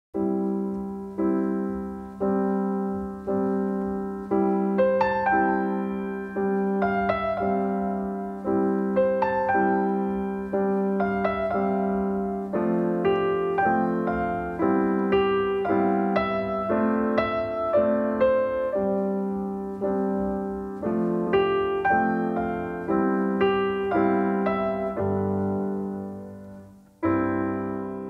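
Gentle piano music: chords struck about once a second under a simple melody, falling away briefly near the end before one final chord.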